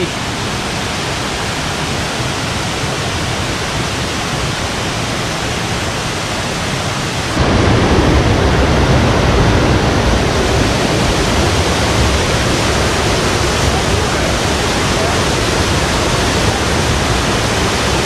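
Waterfall cascading over rock into a pool, a steady rushing of water that jumps louder and deeper about seven seconds in, when it is heard close up.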